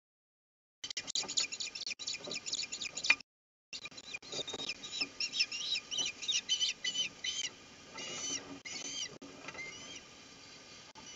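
Ospreys calling at the nest during a fish delivery: rapid series of high, shrill chirps, several a second, starting about a second in, broken once briefly, with a few longer rising-then-falling calls later on.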